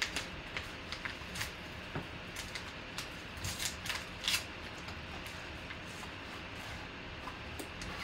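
Yellow padded paper mailer being torn open and handled: papery rustling and sharp tearing crackles, busiest in the first half and loudest about four seconds in, then dying down to faint rustling.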